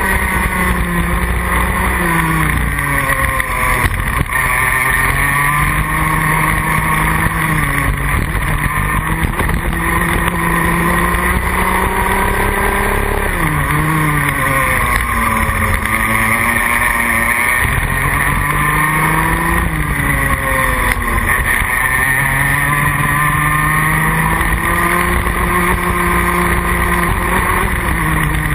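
Rotax Max Junior kart's single-cylinder two-stroke engine heard onboard, climbing in pitch for several seconds along the straights and dropping sharply off throttle into the corners, several times over.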